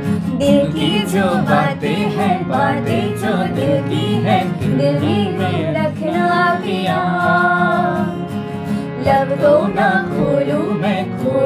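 Two women singing a melody together to an acoustic guitar accompaniment.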